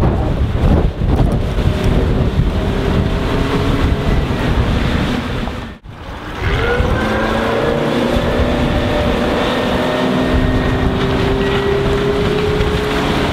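Suzuki 140 hp four-stroke outboard on a RIB running at speed, with heavy wind on the microphone at first. The sound drops out briefly about six seconds in. Then the engine comes back as a clear, steady hum that rises slightly in pitch and holds.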